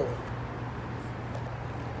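Steady outdoor background noise: a constant low hum under an even wash of sound, with no distinct events.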